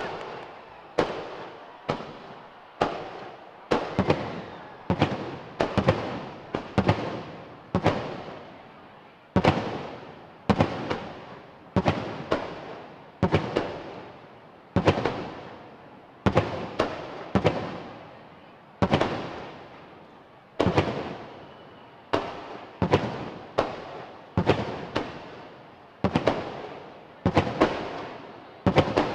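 Aerial fireworks shells bursting in a steady run of sharp bangs, roughly one a second, each trailing off in a fading rumble before the next.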